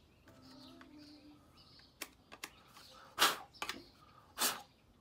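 A handful of short, sharp scrapes and knocks, the loudest about three seconds in, as mud and small stones are cleared out of a Razor electric scooter's drive cog.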